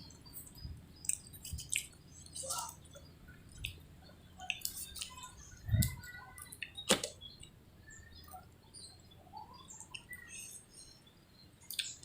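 Close-miked eating: scattered wet mouth clicks and smacks of chewing, with two sharper clicks about six and seven seconds in.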